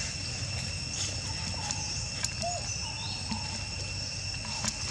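A steady insect drone in two high, unbroken tones, over a low rumble of outdoor noise, with faint short chirps and a few light clicks scattered through.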